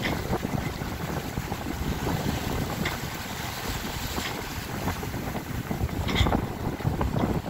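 Strong wind buffeting the microphone over the rush of waves and water along a sailboat's hull as it runs downwind in rough open sea. The noise rises and falls with the gusts, with a louder surge about six seconds in.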